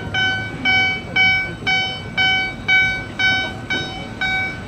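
Warning beeper on a moving railway depot traverser (transfer table), sounding a steady electronic beep about twice a second while it travels sideways carrying a rail car, over a low rumble.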